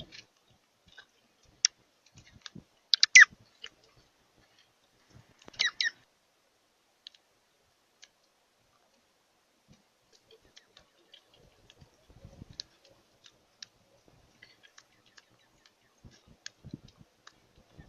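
Birds giving short, sharp high chirps in two clusters, about three and six seconds in, among scattered faint clicks and ticks.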